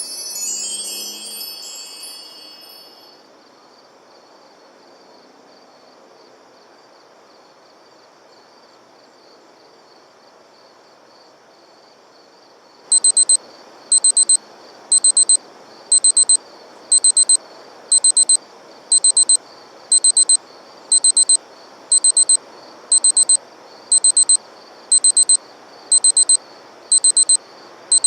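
A bright chime jingle fades out over the first few seconds, leaving a low steady hiss. About 13 seconds in, a digital alarm clock starts beeping: short bursts of rapid high-pitched beeps, about one burst a second.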